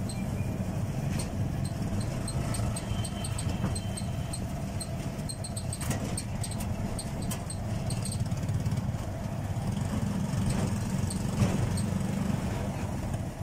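Auto-rickshaw engine running steadily as it drives, heard from the passenger seat, with road noise and light rattling ticks throughout.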